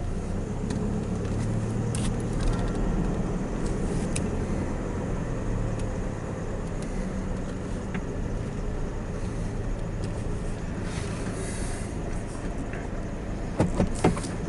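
Pickup truck's engine running, heard from inside the cab as a steady low hum while the truck backs up and pulls away. A few short clicks near the end.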